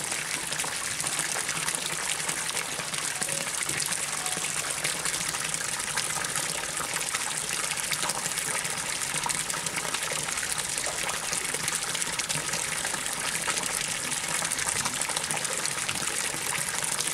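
Water pouring in a steady jet from a pipe into a pond, splashing on the surface in an even, continuous gush.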